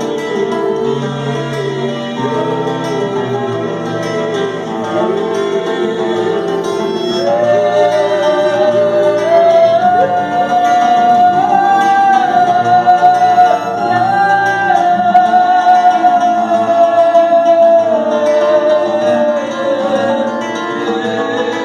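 Acoustic guitar accompaniment with a long held melody line over it, stepping up in pitch and growing louder through the middle, then settling back near the end.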